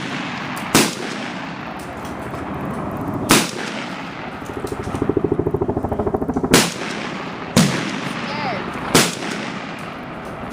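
Rifle shots on an outdoor range: five sharp reports at irregular spacing, each with a short echo, the loudest a little past the middle.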